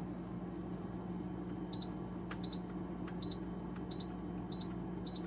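Short high electronic beeps, six of them from about two seconds in, repeating roughly every two-thirds of a second over a steady low hum.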